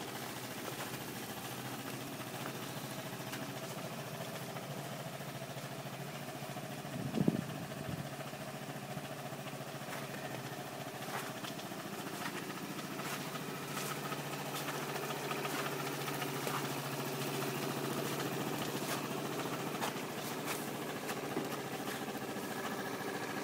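Piaggio Carnaby 125 scooter's single-cylinder four-stroke engine idling steadily, with one brief louder burst about seven seconds in.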